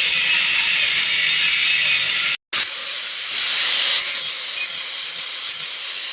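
Saw cutting through aluminum angle stock: a steady cutting noise, then, after a short break about two and a half seconds in, separate strokes about two to three a second.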